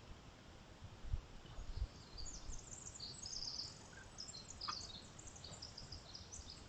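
Small birds twittering in quick high-pitched chirps, with two dull low thumps about a second in and just before two seconds.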